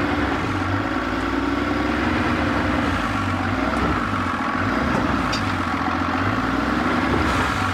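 The engine of a wrecked 2012 Dodge Ram 3500 dually pickup runs steadily at idle as the truck creeps forward at low speed toward a trailer.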